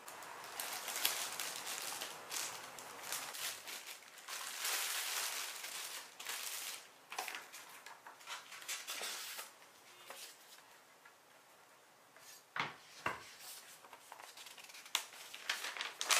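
Clear plastic film crinkling and rustling as it is pulled off a bamboo folding table for about ten seconds. Two sharp knocks follow a little after twelve seconds, with a few light clicks near the end.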